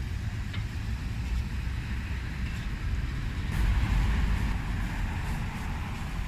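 Outdoor street background: a steady low rumble of traffic and wind on the microphone, swelling briefly about three and a half seconds in.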